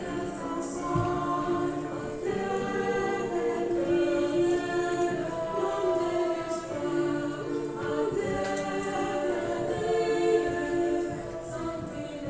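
Choir singing held chords in several parts, moving from one chord to the next every second or so.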